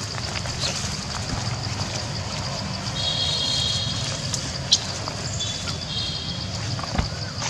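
Steady outdoor background: a continuous high-pitched hum over a low rumble. Short, thin high calls come twice in the middle, and a sharp click and a thump come near the end.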